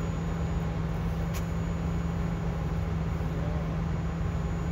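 Fire engine's diesel engine running steadily on scene, a constant low drone, with one faint click about a second and a half in.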